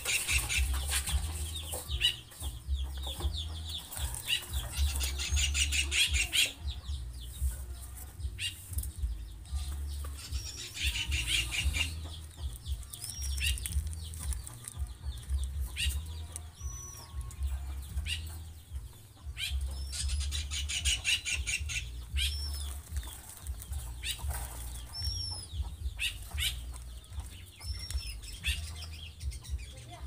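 Young zebra doves fluttering their wings in repeated quick bursts as they jostle to feed from a hand-held feeder. A few short high squeaks come in between.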